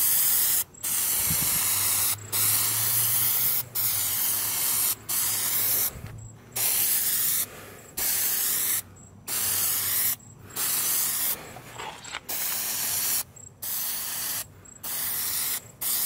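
Aerosol can of Plasti Dip rubberized coating spraying in short passes: about a dozen bursts of hiss, each roughly a second long, with brief breaks between them.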